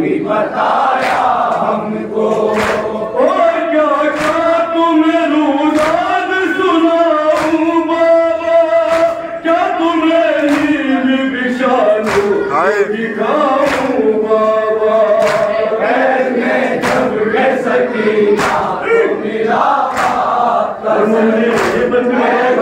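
Men reciting an Urdu noha, a Shia mourning lament, together in long, slowly held melodic lines. Regular chest-beating (matam) strikes land about every three-quarters of a second.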